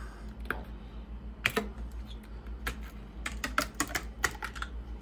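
Sharp plastic clicks and snaps as the black plastic bus-bar covers of a Toyota Prius hybrid battery pack are pried up and popped off the cell terminals: a scattered run of clicks, thickest from about three to four and a half seconds in.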